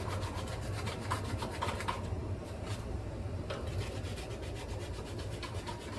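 Window box fan motor running with a steady low hum and a fast, regular rubbing tick, about ten a second, that thins out for a moment midway; the fan is only partly working.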